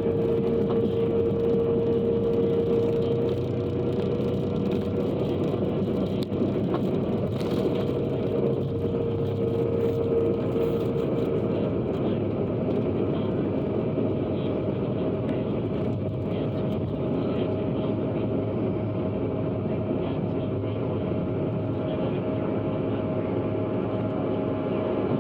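Bombardier CRJ-200 regional jet during takeoff and climb: a steady rush of jet engine and airflow noise, with a steady hum tone that fades out about ten seconds in.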